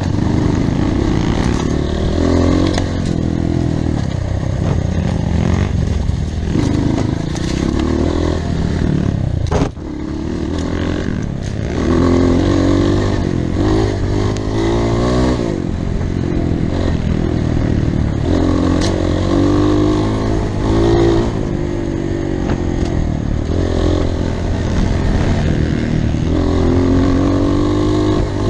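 Off-road motorcycle engine running under load on a trail, its revs rising and falling over and over as the throttle is worked, with clatter and scraping from the ride. The engine note drops out briefly about ten seconds in.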